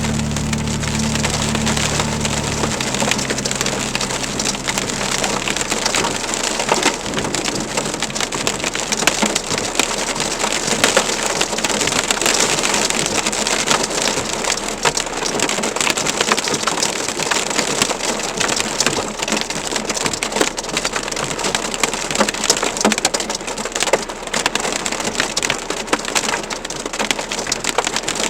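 Heavy rain mixed with hail pelting down: a dense, loud hiss packed with sharp hailstone impacts. A low rumble dies away in the first few seconds.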